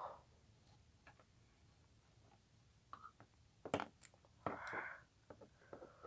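Faint clicks and taps of plastic Lego bricks and minifigures being handled and fitted together, a few sharp ones scattered through, with a short soft breathy rustle about four and a half seconds in.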